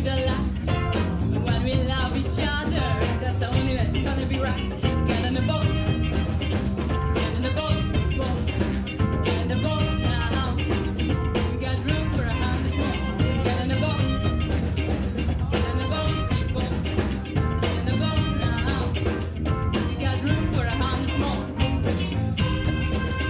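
Big band with a horn section and drum kit playing an upbeat, ska-flavoured number, steady throughout.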